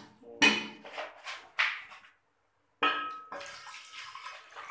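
Water poured from a cup into a steel cooking pot of chicken in stock, splashing: a few short splashes in the first two seconds, then a longer steady pour from about three seconds in.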